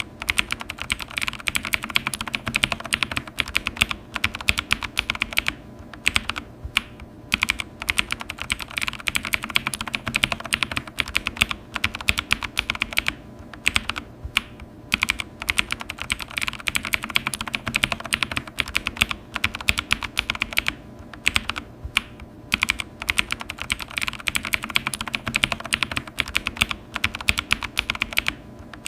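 Typing on a computer keyboard: fast, continuous key clicks in bursts, with short pauses every few seconds.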